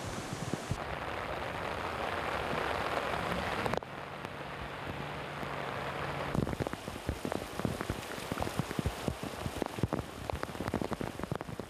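Heavy rain with a swollen, muddy river rushing in the first few seconds. After abrupt changes about 4 and 6.5 seconds in, torrential rain patters densely on tiled roofs.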